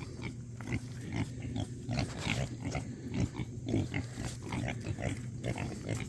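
A group of young pigs grunting: many short, irregular grunts close together over a low steady hum.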